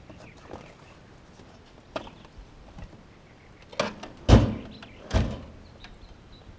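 A few knocks and thuds: a light knock about two seconds in, then two heavy thumps a second apart, the first the loudest.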